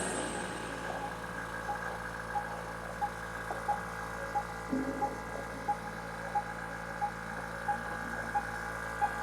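Quiet background music: held tones with a soft tick about one and a half times a second.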